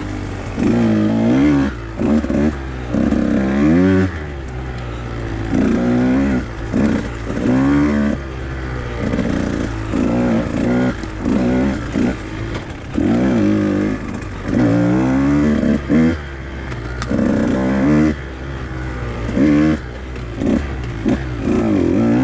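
Husqvarna TE 150 two-stroke enduro motorcycle engine being ridden off-road, revving up and dropping back over and over as the throttle is worked every second or two.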